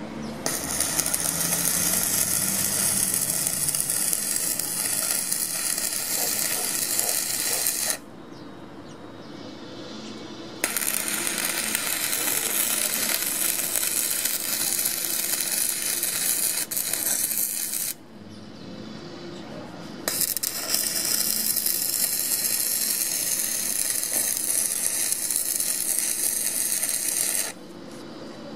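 Stick welding with a coated electrode: the arc crackles steadily in three long runs, stopping twice for about two seconds in between.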